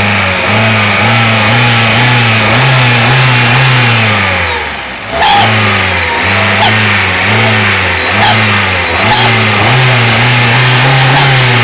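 Kia Sephia 1.5 DOHC four-cylinder engine being revved in quick repeated throttle blips, its pitch rising and falling about twice a second, with a brief lull near the middle. The alternator's output lead is disconnected, the test for the whistle that traced it to a failed diode bridge.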